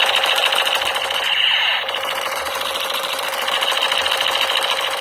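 Electric toy military machine gun firing, a loud rapid rattle held without a break.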